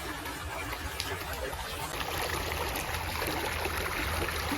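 Steady rushing of a small river's flowing water, with a low rumble underneath that grows slightly louder about halfway through.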